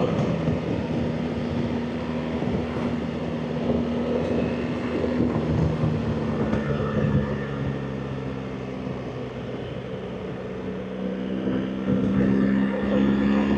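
BMW R 1300 GS Adventure's boxer twin engine running under way, its note dropping about a third of the way in as it eases off, then rising again near the end.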